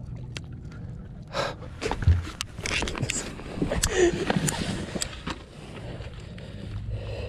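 Handling noise as a freshly caught bass is taken from a landing net on a carpeted boat deck: a run of knocks, clicks and rustles, with a heavy thump about two seconds in.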